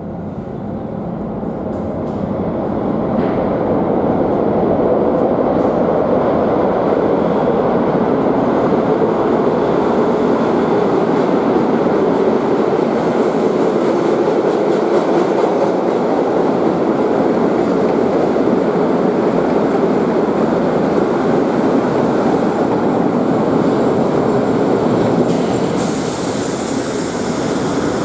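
Vintage R4 and R1/9 subway train arriving and running past along the platform: a rumble that swells over the first few seconds as it comes out of the tunnel, then a steady loud roar and clatter of steel wheels on rail as the cars go by close at hand, with a high hiss coming in near the end.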